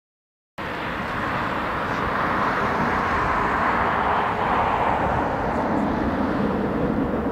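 Sound cuts in abruptly about half a second in, then the steady jet noise of an Airbus A380's four Rolls-Royce Trent 900 engines as the airliner rolls out on the runway after touchdown, swelling slightly at first.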